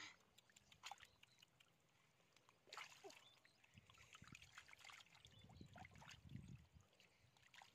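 Faint squelching and sloshing of hands groping through shallow mud and water, with a few sharper wet slaps about one and three seconds in.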